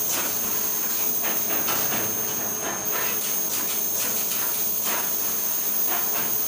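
Steady machinery noise with a constant high-pitched whine, broken by irregular short hissing bursts.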